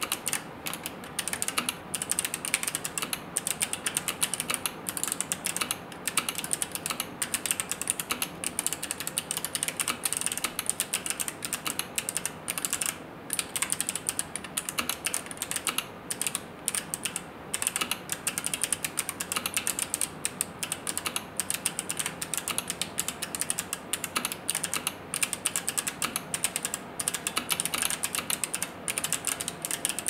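Continuous typing on a 60% mechanical keyboard with Kailh Box Jade clicky switches on a brass plate in an acrylic case, with PBT keycaps: a fast, dense stream of sharp clicks broken by brief pauses every second or two.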